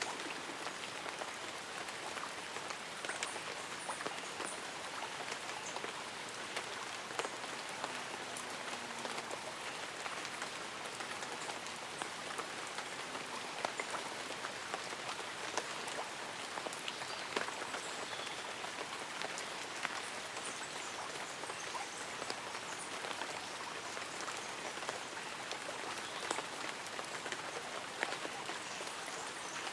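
Light rain pattering on leaves and an umbrella, a steady hiss dotted with many small drop ticks. No music.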